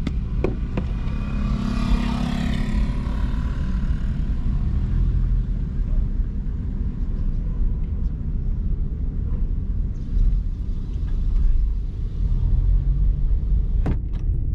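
Car driving at low speed, its engine and road noise a steady low rumble, with a brief swell of hiss about two seconds in and a few sharp clicks near the end.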